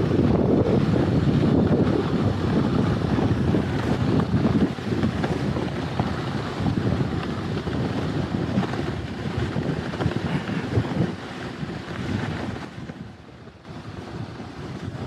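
Wind buffeting the microphone, with a dense rumble, during a ride down a toboggan run. It dies away briefly about two seconds before the end, then partly returns.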